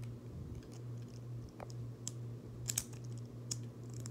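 Plastic Lego bricks clicking as they are handled and pressed together, a handful of sharp clicks spread out, over a steady low hum.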